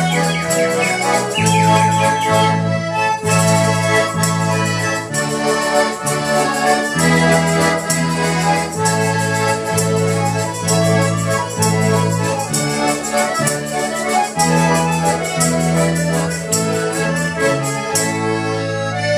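Several accordions play a lively folk dance tune together: a melody over bass chords that change in steady pulses. Under it runs a regular tapping beat.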